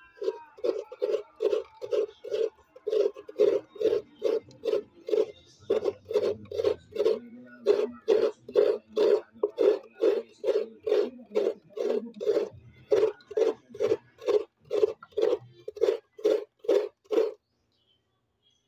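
Fresh coconut meat being grated by hand, the halved coconut scraped against a grater in steady rasping strokes, a little over two a second. It stops near the end.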